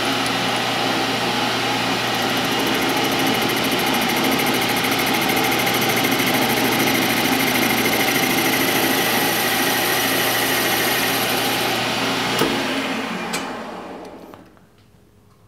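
Metal lathe spindle running at about 720 RPM with a carbide tool facing the end of a steel tube in a four-jaw chuck: a steady machine whine with cutting hiss. A click about twelve seconds in, then the sound dies away over a couple of seconds as the spindle coasts to a stop.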